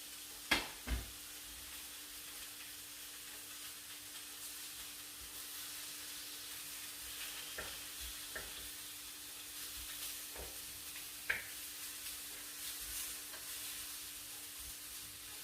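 Chicken breast sizzling in a frying pan, with a few short knocks and scrapes of a utensil against the pan, the loudest two about half a second and a second in.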